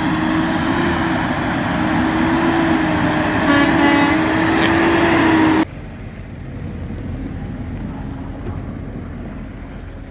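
Pickup truck running hard with a steady whine over its engine noise, which cuts off abruptly about five and a half seconds in, leaving a quieter low rumble.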